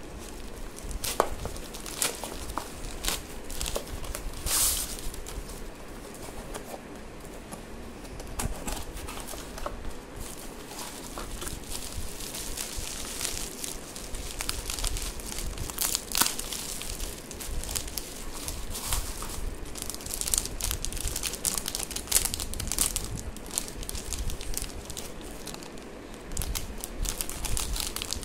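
Plastic packaging and bubble wrap being handled by hand as a parcel is unpacked: steady crinkling and rustling with irregular sharp crackles.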